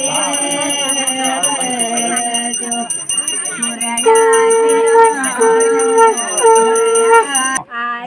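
Background music with singing, then a conch shell (shankh) blown in three steady blasts of about a second each, all on the same note, about halfway in. The blasts are the loudest sound here.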